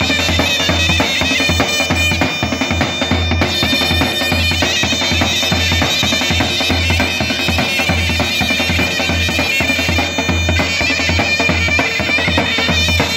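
Two zurnas playing a shrill, nasal melody in unison over the steady beat of a large double-headed tapan drum struck with a padded mallet.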